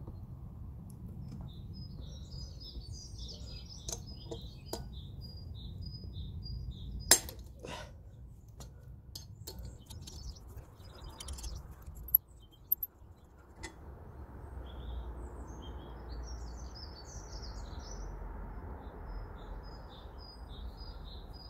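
Sharp metal clicks and clinks of a small wrench and left-hand screw extractor working a seized brake disc screw loose, the loudest about seven seconds in and two more a little past the middle. Birds chirp over a steady low rumble.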